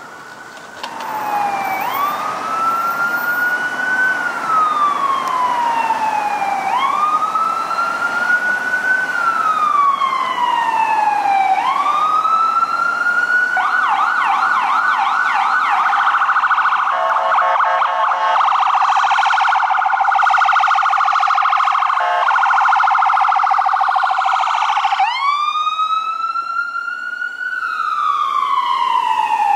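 An AMR ambulance's electronic siren comes on about a second in with a slow rising-and-falling wail. Near the middle it switches to a rapid yelp for about ten seconds, then returns to the wail as the ambulance responds to an emergency call.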